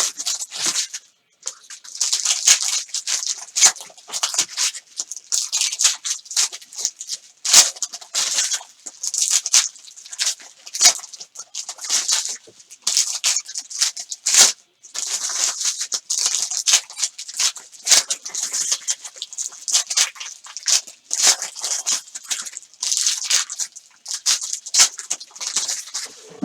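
Trading card pack wrappers being torn open and crinkled in the hands, one pack after another, with cards rustling as they are pulled out. The crackling is dense and irregular, broken by short pauses.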